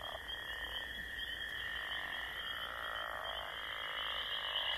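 A dense chorus of frogs croaking in a swamp, a steady pulsing trill that slowly grows louder.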